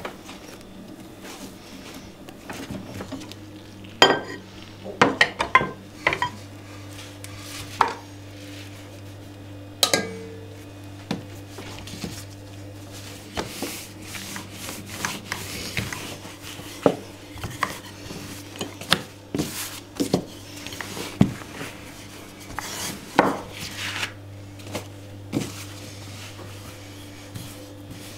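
Kitchen dishes and cutlery clinking and knocking in irregular clusters, over a steady low hum.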